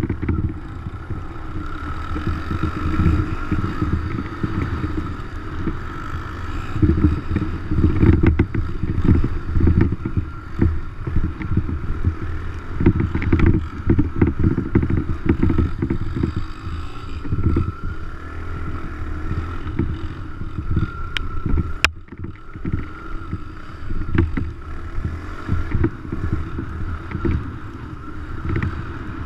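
Dirt bike running while being ridden, with wind buffeting the microphone in heavy, uneven gusts. There is a sharp click about 22 seconds in.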